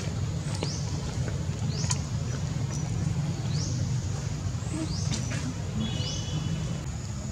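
Outdoor ambience: a steady low rumble under a bird's short rising chirps, repeated roughly once a second, with a faint steady high whine.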